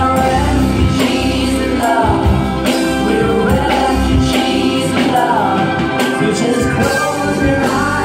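Live band music, loud and amplified: violin, keyboards and a drum kit, with a voice singing.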